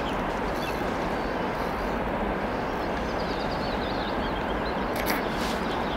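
Steady rush of flowing river water, with small birds chirping faintly in the middle and a couple of sharp clicks about five seconds in.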